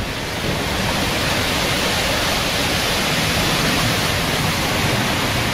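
Heavy hurricane rain falling steadily, a constant even hiss.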